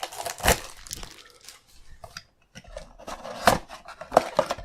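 Trading-card packs and cards being handled: foil wrappers crinkling and cards rustling and clicking, in sharp crackles that are loudest about half a second in and again from about three and a half seconds.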